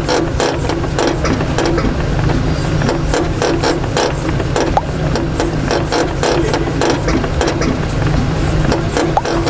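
A car's drivetrain running under test, with a steady low hum and rapid, irregular mechanical clicking and rattling over it: the kind of noise that points to a fault in the drivetrain.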